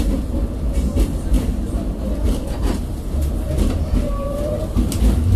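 Tram heard from inside the car while running along the track: a steady low rumble of wheels and running gear, with irregular clicks and knocks from the rails. A faint short whine comes about four seconds in.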